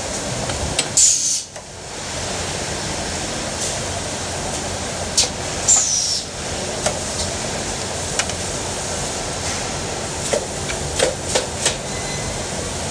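Injection moulding machine and its pneumatic insert robot running, with a steady machine noise throughout. Two short hisses of compressed air, each with a falling whistle, come about a second in and near six seconds. A scatter of sharp clicks and clacks follows over the last half.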